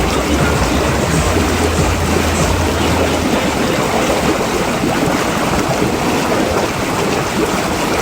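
Steady rushing water, loud and even, with a low hum underneath that stops about three seconds in.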